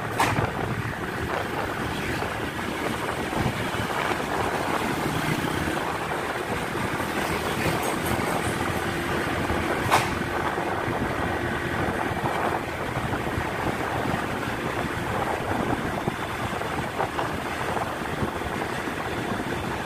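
Steady vehicle noise with wind on the microphone, and a sharp click about ten seconds in.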